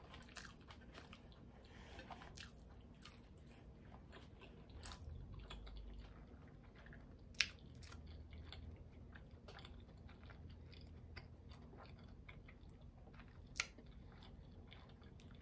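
A person quietly chewing french fries close to the microphone: soft mouth sounds and small wet clicks, with two sharper clicks about seven seconds in and near the end.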